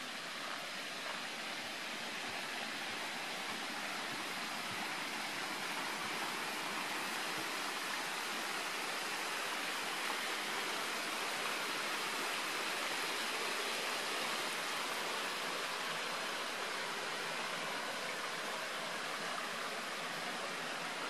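Steady rushing, trickling sound of water circulating in a shrimp aquarium, swelling slightly in the middle.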